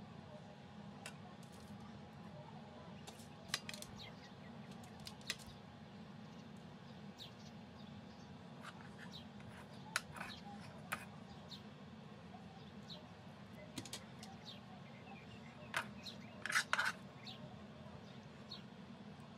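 Scattered light clicks and taps of a spoon and food being laid onto a burger bun, with a short cluster of louder taps near the end, over a steady low hum.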